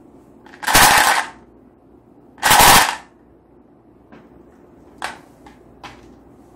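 Marbles rattling inside a clear plastic cup as it is shaken, in two short bursts of rapid clattering, followed by a few light clicks.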